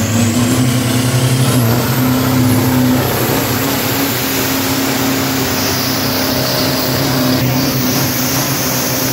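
Street pickup truck engine held at steady high revs during a burnout, with the rear tyres spinning and smoking on the pavement and hissing loudly.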